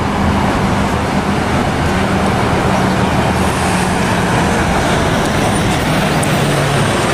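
A bus engine running steadily amid road traffic noise, a low steady hum under a dense rush.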